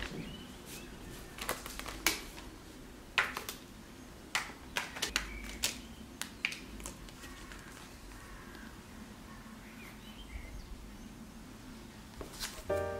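Thin sheets of tempered chocolate snapped by hand into shards: a series of sharp, crisp snaps and clicks, close together in the first half and thinning out after that.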